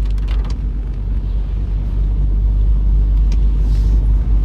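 Steady low rumble inside a car's cabin, growing a little louder about halfway through, with a few faint clicks near the start.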